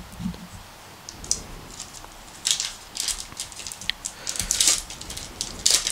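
Plastic-foil wrapper of a trading-card pack being torn open: a run of sharp crinkling crackles that starts about two and a half seconds in and grows louder near the end.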